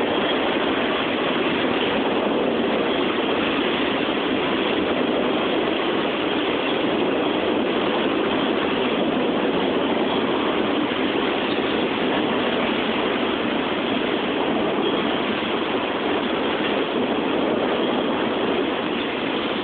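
Slow CSX freight train's cars rolling past on the rails, a steady even rolling noise that does not change.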